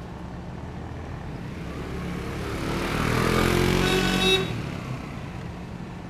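A motorcycle passes close by. Its engine grows louder over a couple of seconds, peaks about four seconds in, then drops off sharply and fades. The rider's own scooter engine runs steadily underneath.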